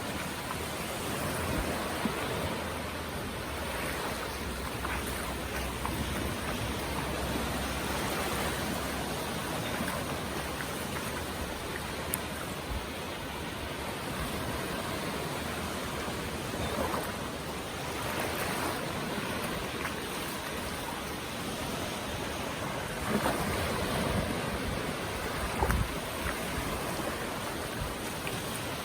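Ocean waves washing onto a beach, a steady surf noise that swells and eases, with a couple of brief bumps near the end.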